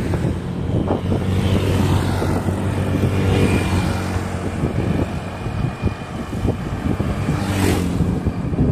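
A motor vehicle's engine running steadily close by on the road, with a brief whoosh near the end.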